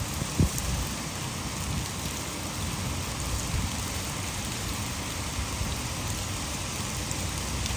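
Heavy rain falling steadily, blended with water pouring over a nearby hydroelectric dam. There is one brief low thump about half a second in.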